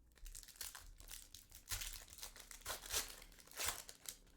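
Trading-card pack wrapper crinkling and tearing as a pack of cards is opened, in a run of irregular rustles and crackles.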